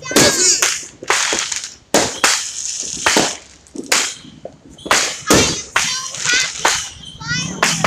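Fireworks going off: a rapid, irregular string of a dozen or more sharp bangs and cracks.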